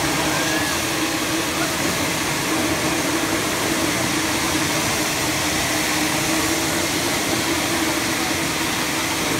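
Confetti cannon blasting a continuous stream of confetti into the air: a steady, loud rush of air with a low hum beneath it.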